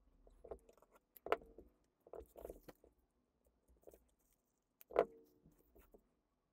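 Thin PE foam sheet being cut and handled on a keyboard PCB: faint scattered clicks and scrapes, with two sharper clicks, one about a second in and one about five seconds in.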